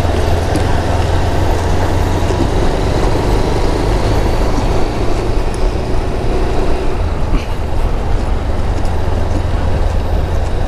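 Motorcycle riding along at a steady pace, heard from the rider's own bike: a steady engine hum under a heavy low rumble of wind and road noise.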